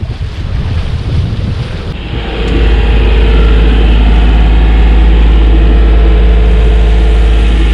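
Wind and water rushing past the sailboat for about two seconds, then the boat's inboard diesel engine running at a steady, even speed, a loud low hum heard from inside the cabin.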